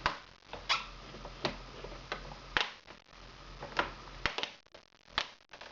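Plastic snap tabs of a ThinkPad Edge E420's screen bezel clicking free one at a time as the bezel is pried off: a series of sharp clicks at uneven intervals, about one a second.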